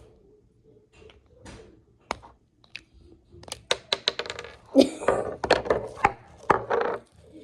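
Handling of slime and its plastic container: scattered sharp clicks and taps, then a quick run of clicks and louder squishy bursts, loudest about five to seven seconds in.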